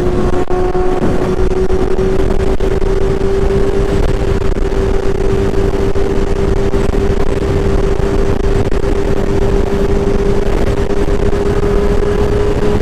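Honda CBR600 F4i inline-four motorcycle engine running at a steady freeway cruise, a constant tone that creeps slightly higher in pitch, under heavy wind rush on the microphone.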